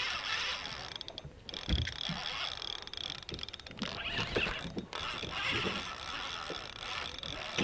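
Fishing reel being cranked to bring in a hooked fish, its gears clicking, with irregular knocks and thuds and one sharp hit at the end.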